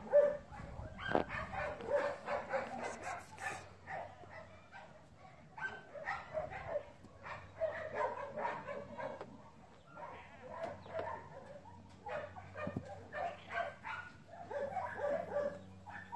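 Small dog barking and yapping in quick runs of short, high calls, with brief pauses between the runs.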